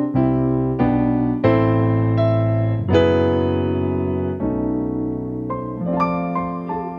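Slow piano music: chords and notes struck and left to ring, changing every second or so.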